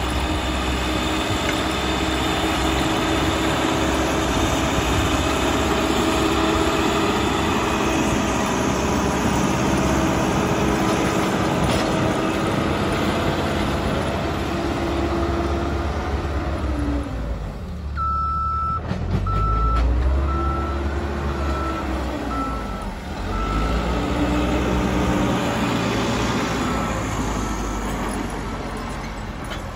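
Caterpillar 434E backhoe loader's diesel engine working under load as it pushes soil with its front bucket, revving up and down. A little past halfway its reversing alarm starts beeping steadily, about one and a half beeps a second, for several seconds as the machine backs up.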